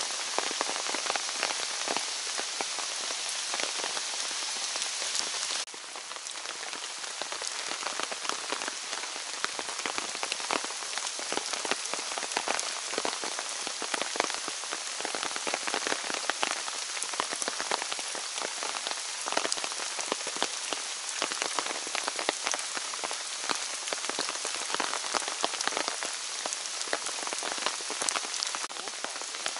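Steady rain falling on the forest, with many close drops ticking sharply through it. The overall level drops a little about six seconds in.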